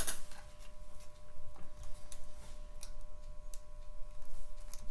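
Light, irregular clicks of a lock pick working the pins of a five-pin challenge lock core against tensioner pressure.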